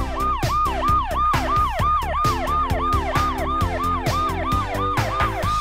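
Electronic siren of a toy fire engine, set off by pressing its blue beacon light: a fast repeating wail of about three rising-and-falling sweeps a second. Background music with a steady beat plays under it.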